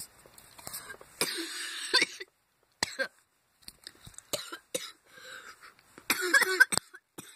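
A person coughing close to a phone microphone in two bursts, about a second in and near the end, with sharp clicks from the phone being handled in between.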